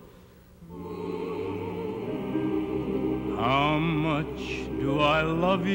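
A man singing a slow ballad with a wide vibrato over sustained instrumental accompaniment. After a brief hush at the start, the accompaniment's held chords come back in, and the voice enters about three seconds in with two phrases.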